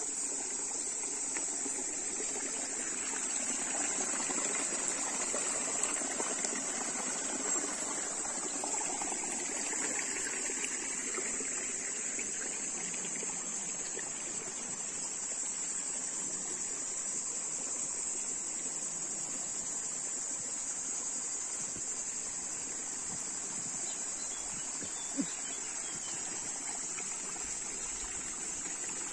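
Small shallow woodland stream trickling and burbling over rocks in a steady flow, with a steady high-pitched insect buzz over it. There is one short tap near the end.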